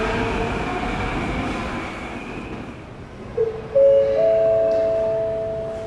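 Yokohama Municipal Subway Blue Line train pulling away from an underground platform, its running noise fading over about three seconds. Then an electronic train-approach chime: three tones enter one after another and are held together as a chord.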